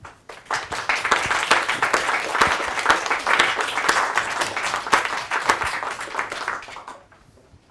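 Audience applauding: many hands clapping, building up within the first second and dying away about seven seconds in.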